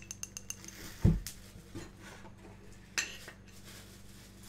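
A set of breakable coasters clinking against one another as they are shaken: a quick run of small ringing clinks at the start, a louder dull knock about a second in, and another clink near three seconds.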